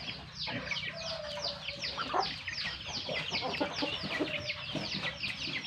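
Chickens in a flock: a constant stream of high, quickly falling peeps, the kind that young chicks make, with a few lower clucks and calls from adult birds among them.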